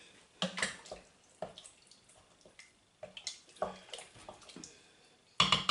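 Water poured into the Instant Pot's inner pot of soup in several short splashes, with light knocks between them.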